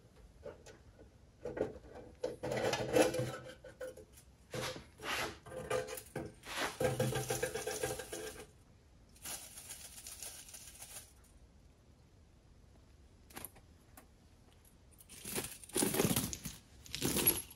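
Small metal fuel-tap parts clinking and rattling in a wire mesh basket as it is lifted out of an ultrasonic cleaner's tank and set down on paper towel. The handling comes in two bouts, with a pause of a few seconds between them.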